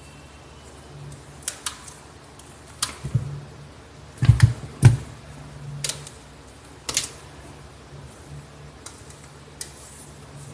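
Plastic laptop screen bezel being pried off by hand: a series of sharp clicks and snaps as its glued-in clips let go, the loudest cluster a little past the middle.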